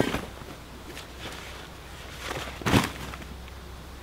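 Camping gear being set down on the ground: rustling and handling noise, with one loud thud a little under three seconds in.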